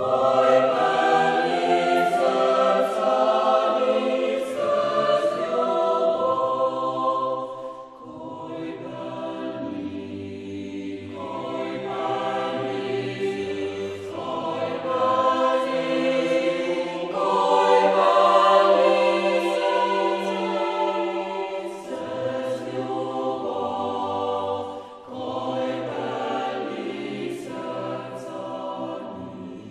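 A choir singing a slow piece in sustained chords, phrase after phrase, with short breaths between phrases.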